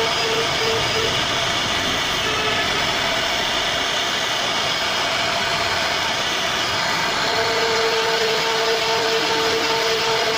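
CNC router spindle running with its bit carving a relief pattern into a solid wood door panel: a steady machine whine mixed with cutting noise. A steadier tone comes in about seven seconds in.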